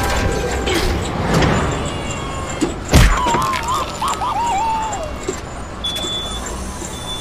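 Street traffic noise, with one sharp thump about three seconds in as a boxing glove on a mechanical arm strikes a person. A short, wavering high-pitched sound follows for a couple of seconds.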